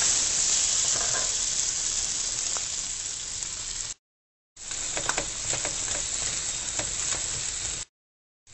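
Shallots and sliced red chilies sizzling as they fry in butter in a nonstick wok, stirred with a ladle that taps and scrapes against the pan a few times. The sizzle fades slowly at first, and the sound cuts out completely twice for about half a second.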